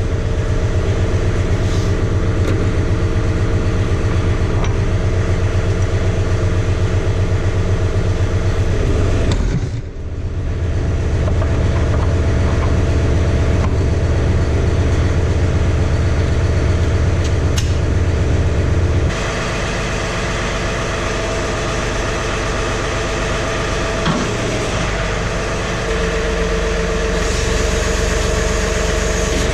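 John Deere compact tractor's diesel engine running steadily, just started and still cold. It dips briefly about ten seconds in and settles to a slightly softer, lower note from about nineteen seconds in.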